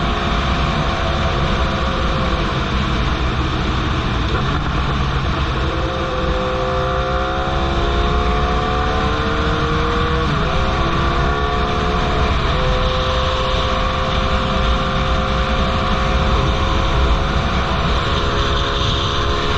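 Straight-piped 2003 Yamaha R1 inline-four running under way. Its pitch climbs steadily from about six seconds in, breaks sharply around ten seconds and again around twelve seconds, then holds steady.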